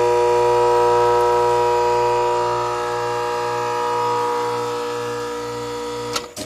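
Gas pack condensing unit humming loudly and steadily while its contactor is held in by hand, with the condenser fan motor not turning: its bearing is seized. About six seconds in the hum cuts off with a sharp click as the contactor is released.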